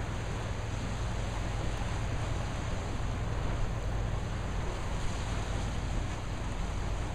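Steady outdoor wind and sea noise with a low, even rumble underneath.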